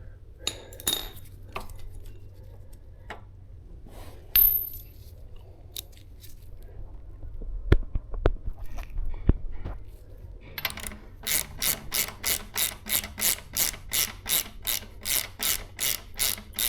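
Metal tools being picked up and knocked about, with scattered clinks and clanks. Then, from about eleven seconds in, a ratchet wrench clicks steadily about three times a second while working the axle nut.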